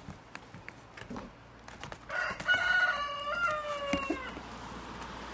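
A rooster crowing once, about two seconds in, a call of about two seconds in stepped parts that falls in pitch at the end. Around it, light taps of goat kids' hooves on the playhouse roof.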